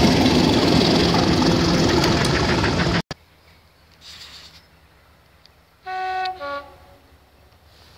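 Class 37 diesel locomotive running as it passes, with rail noise. The sound cuts off abruptly about three seconds in. About six seconds in, a train horn sounds briefly on two notes, a higher one and then a lower one.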